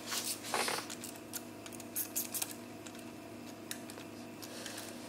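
Light metallic clicks and a brief scrape as a quad-flute thread tap is handled and set into a drilled head-bolt hole in the engine block, a few scattered ticks in all, over a faint steady hum.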